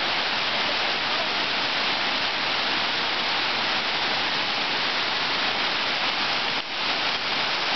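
Water pouring over a low dam spillway: a steady, even rush of falling water, dipping for a moment near the end.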